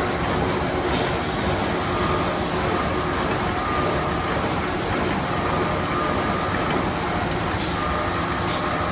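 Automatic band saw toilet-tissue roll cutting machine running, with its band saw and conveyor making a loud, steady mechanical noise. A brief higher tone comes and goes about every one and a half seconds.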